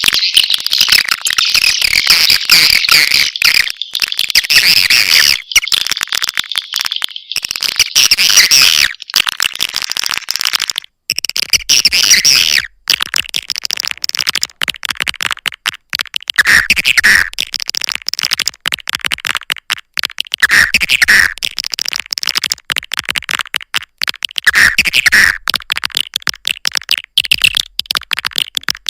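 Recorded swiftlet lure call: a dense, rapid twittering of swiftlet chirps and clicks. In the second half a lower chirp recurs about every four seconds, as in a looped track.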